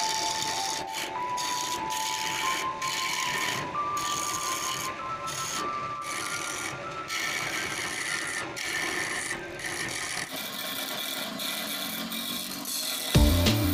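Mahogany spinning on a wood lathe under an abrasive or cutting tool: a steady rough rubbing, scraping noise broken by short gaps every second or two. Near the end a louder low thumping starts.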